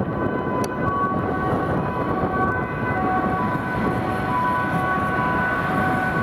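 Dutch emergency two-tone siren, its pitches alternating every half second to a second, over a steady rush of city traffic.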